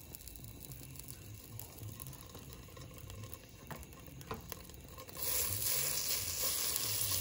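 Butter sizzling as it melts in a hot nonstick pan. The sizzle starts suddenly about five seconds in, after a quiet stretch with a few faint taps.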